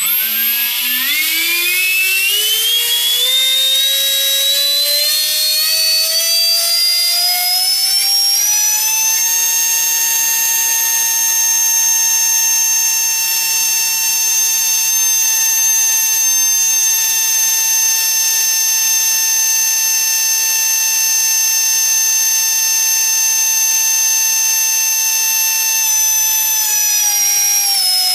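Vasa 55 all-carbon electric ducted fan driven by a Tenshock 1030/16 brushless motor, starting suddenly and spooling up with a loud rising whine over about nine seconds. It then holds one steady pitch, and begins to wind down near the end.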